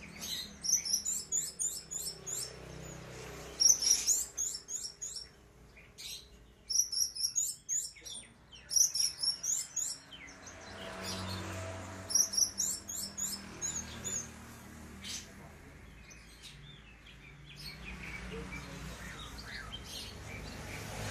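Caged orange-headed thrush (anis merah) singing in bursts of rapid, high chirping phrases, each a second or two long, about five phrases in the first half and only scattered notes after.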